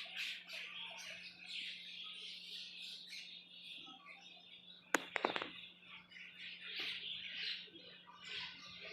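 Many small birds chirping and twittering continuously, with a pair of sharp clicks about five seconds in and a faint steady low hum underneath.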